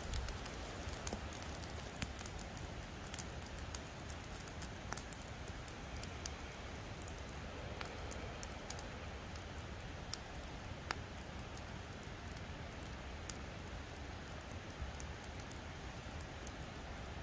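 Campfire crackling, with irregular sharp pops over a steady hiss.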